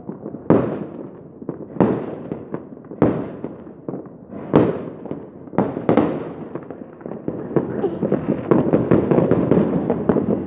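Aerial fireworks bursting: a series of sharp bangs about a second apart, each with a fading tail. From about seven seconds in, a dense run of rapid crackling pops takes over.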